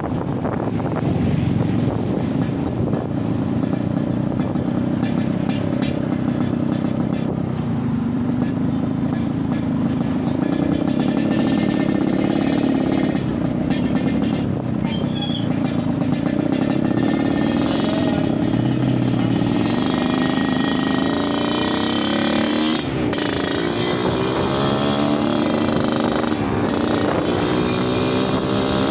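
Yamaha RX-King two-stroke single-cylinder motorcycle engine running with its "snoring" exhaust note; its pitch drops and rises a few times in the last several seconds as the engine speed changes.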